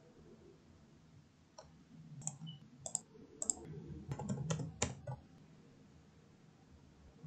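Faint, scattered clicks of a computer keyboard and mouse, about a dozen of them bunched between about one and a half and five seconds in.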